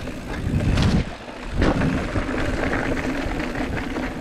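Mountain bike riding fast down a rough dirt trail: a steady rumble of tyres and wind, with the chain and frame rattling and a couple of sharp knocks in the first two seconds.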